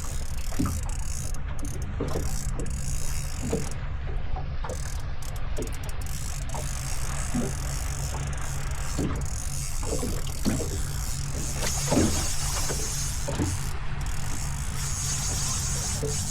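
Small fishing boat's motor running steadily with a low rumble, and scattered knocks and clicks of gear being handled on board, the loudest about three quarters of the way through.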